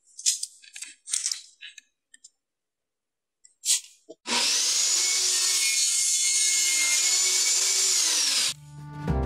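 A few small handling clicks and scrapes, then a table saw runs and cuts through PVC pipe for about four seconds, a steady loud whine that stops abruptly. Music comes in near the end.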